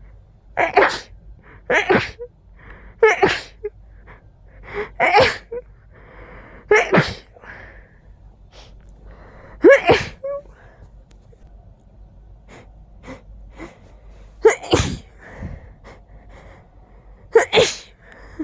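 A person in a sneezing fit: about eight loud, sharp sneezes. The first four come close together, then they are spaced more widely, with faint breaths between them.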